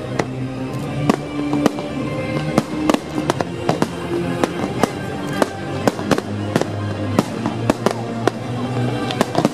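Fireworks bursting overhead: many sharp bangs and cracks at an uneven pace, several a second, over music with long held notes.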